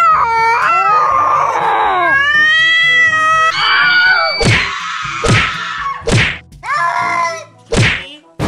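Meme sound clips of shrill screaming cries. Long cries rise and fall in pitch over the first few seconds, then a run of short, sharp cries follows in the second half.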